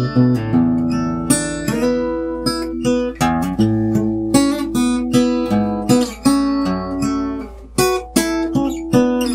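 Kay 000 (OM-size) X-braced acoustic guitar with a solid spruce top and laminated mahogany back and sides, played with picked notes and strummed chords, the bass notes ringing under a quick run of note attacks.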